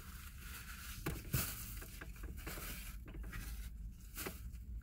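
Soft rustling of a crumpled brown paper napkin being handled and wiped across the face, with a few light clicks.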